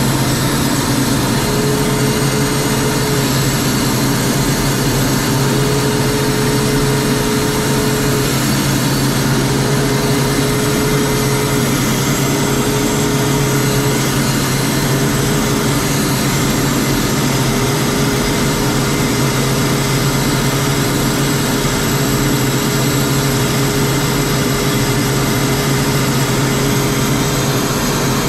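Steady in-flight noise heard inside the cockpit of the camera aircraft: a constant engine drone and airflow, with a fainter hum that wavers a little in pitch.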